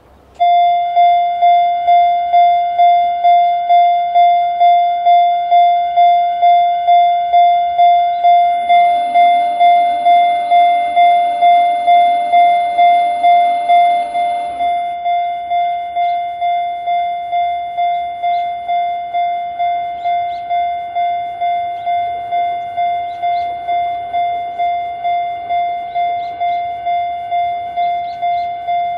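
Japanese railway level-crossing alarm with a single-tone 'Chichibu sound' electronic bell, sounding a steady repeated ding a little over twice a second; it starts abruptly just after the opening. From about nine to fourteen seconds another sound with several lower tones overlaps it, and after that the dings are a little quieter.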